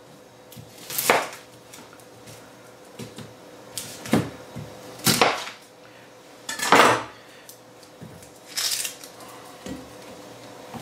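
Chef's knife cutting the ends off an onion on a plastic cutting board: about five sharp knocks of the blade on the board, irregularly spaced.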